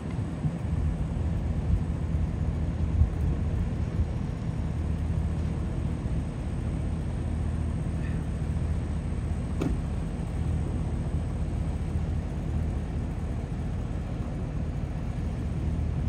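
A fire engine's diesel engine idling with a steady low rumble while the truck stands parked.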